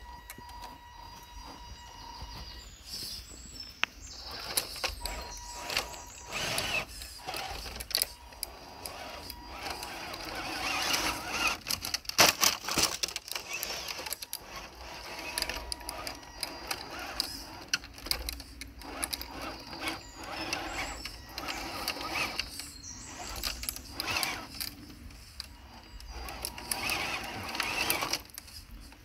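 Radio-controlled scale crawler trucks driving: small electric motor and gear whine with many clicks and scrapes of tyres and chassis over the ground.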